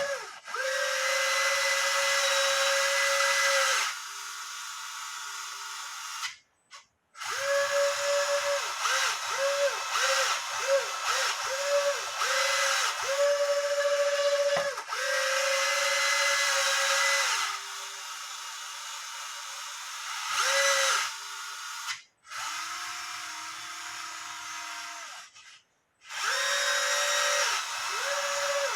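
Small electric gear motors of a Huina 583 RC wheel loader whining as the bucket is driven, in repeated runs that cut off abruptly, with a string of short jabs in the middle and quieter, lower-pitched stretches between. The cut-offs are the bucket limit switches stopping the motor at the end of its travel, under an 11.1 V supply.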